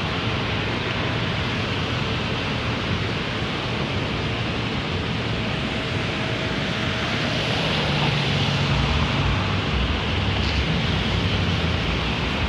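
City street traffic noise: a steady hiss of passing cars' tyres and engines. A low engine rumble builds from about eight seconds in as a vehicle passes.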